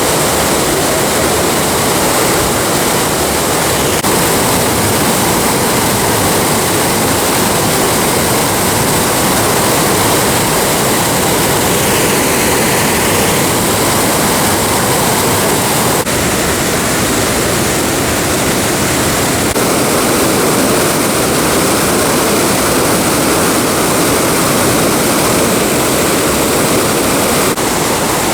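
Waterfall: loud, steady rushing of falling water.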